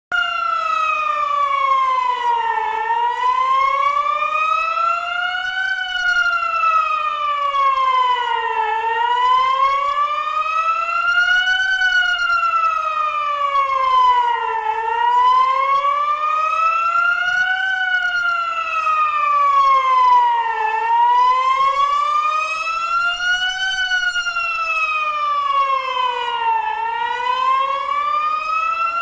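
Civil-defence warning siren sounding as a test, a loud wail that glides slowly up and down in pitch, each rise and fall taking about six seconds.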